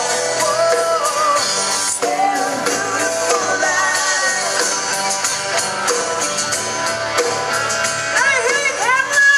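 Live rock band playing on guitars, bass and drum kit, with a woman singing. Near the end a line wavers up and down in quick curved bends.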